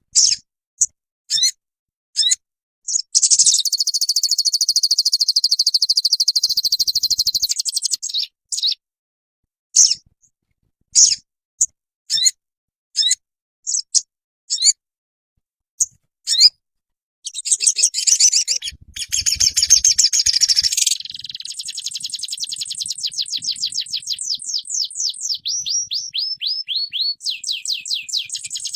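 Songbird singing high and shrill: short separate chirps, long fast trills, and near the end a rapid run of repeated notes, about four or five a second, that dip and rise in pitch. The gaps between phrases are dead silent, as in an edited song recording.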